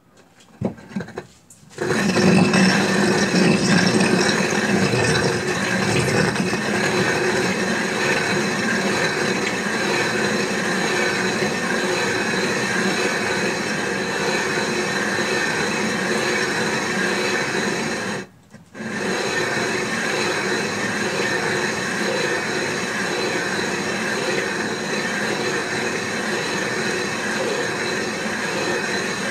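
Hand-turned stone quern (chakki) grinding grain, its upper stone spun fast on the lower one by a wooden handle: a steady stone-on-stone grinding noise. A few knocks come about a second in before the grinding starts, and it breaks off briefly about eighteen seconds in.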